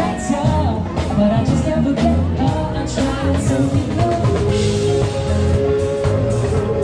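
Live rock band playing through outdoor speakers: a drum kit keeping a steady beat under a singer's voice, with a strong bass line.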